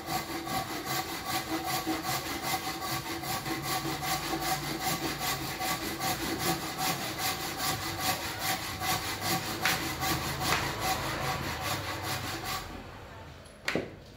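Bahco AP06 handsaw cutting across a wooden beam in quick, even back-and-forth strokes, with a steady ringing tone under the rasp. The sawing stops shortly before the end, and a single sharp knock follows about a second later.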